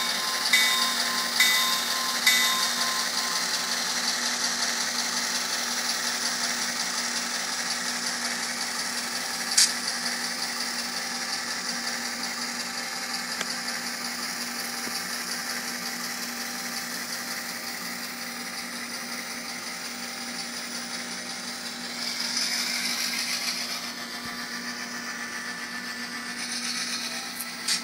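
Diesel engine sound from a Tsunami Micro sound decoder in an N scale F7 model locomotive, played through its tiny speaker as a steady buzzy hum. For the first couple of seconds a locomotive bell sound rings about once a second, then stops. The engine sound swells for a couple of seconds about three-quarters of the way through.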